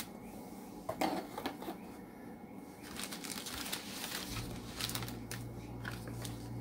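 Plastic packaging and paper rustling and crinkling in irregular clicks as a diamond painting kit's plastic-wrapped pieces and paper pamphlet are handled. A steady low hum comes in about four seconds in.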